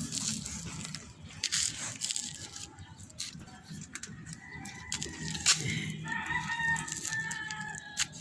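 A rooster crowing, with scattered short clicks and knocks.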